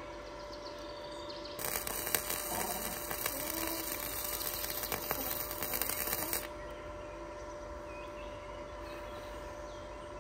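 Electric arc welding on an ornate metal safety rail, joining a broken piece back on. A sizzling crackle starts about one and a half seconds in, runs for about five seconds and cuts off suddenly.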